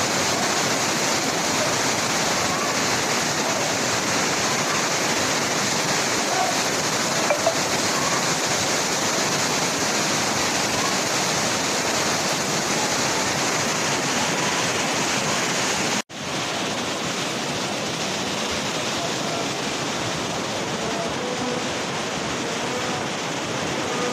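Flash-flood torrent of a swollen river rushing steadily. The sound drops out for an instant about sixteen seconds in, then goes on a little quieter.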